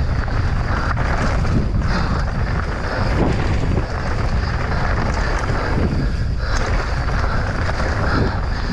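Wind buffeting the microphone of a camera on a mountain bike descending an enduro trail at speed, with tyre roar on dirt and short knocks and rattles from the bike over bumps.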